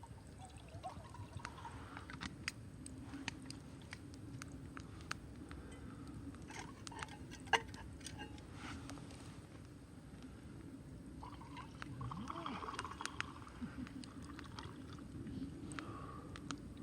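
Wood campfire crackling quietly, with irregular sharp pops and snaps over a low steady rush.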